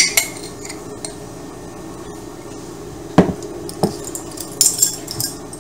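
A spoon clinking and knocking against jars and the mixing bowl as seasoning is measured out: a sharp clink at the start, two duller knocks about three seconds in, and light rattles near the end.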